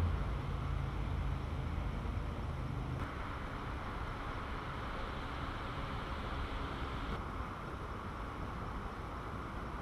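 Steady low rumble and hiss of wind on the microphone, with a faint low hum that fades about three seconds in.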